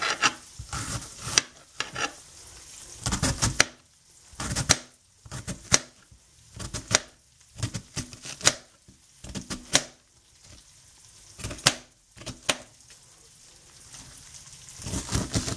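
Chef's knife slicing through a cabbage wedge and striking a glass cutting board: sharp clacks at an irregular pace of about one a second, with short pauses. Underneath, bacon and onions sizzle faintly in a skillet.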